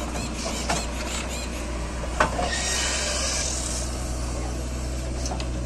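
JCB 3DX backhoe loader's diesel engine running steadily while its backhoe bucket loads soil into a tractor trolley. There is a sharp knock about two seconds in, followed by a short rushing hiss.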